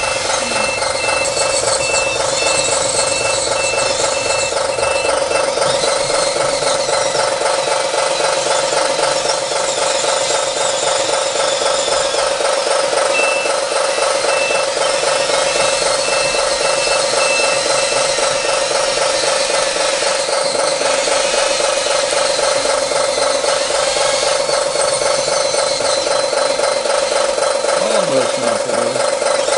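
Radio-controlled scale bulldozers and a skid steer loader running together, giving a loud, steady, pitched mechanical drone. An electronic reversing alarm sounds twice as an even series of high beeps, each series lasting about five seconds.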